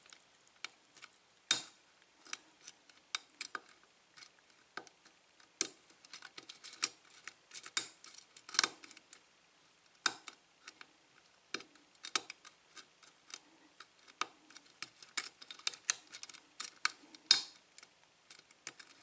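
Irregular small metallic clicks and scratches of a lock pick working the pin stacks of a Sargent 5-pin lock cylinder, one pin at a time, with a tension wrench holding the plug; a few clicks stand out louder, and the lock stays shut.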